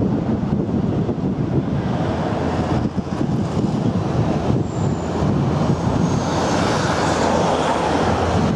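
Wind buffeting the camera's microphone: a loud, unsteady low rush.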